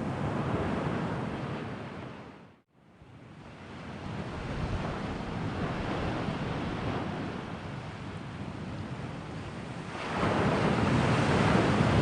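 Ocean waves washing on the shore, a steady rush that swells and eases. The sound drops out briefly about two and a half seconds in, then comes back and grows louder near the end.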